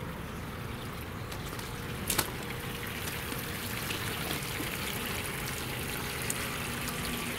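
Water from a garden hose running steadily into an aluminum boat hull, splashing over its ribbed, riveted floor as the hull is filled to check for leaking rivets. A sharp click sounds about two seconds in.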